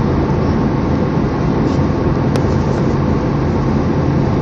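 Jet airliner cabin noise at cruise beside the under-wing turbofan engine: a steady rushing drone with a low, even hum. A single faint click about two seconds in.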